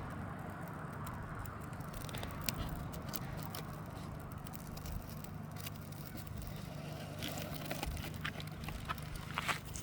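A freshly lit fire starter and kindling burning with a scattered crackle of sharp pops, more of them near the end, over a steady low hum.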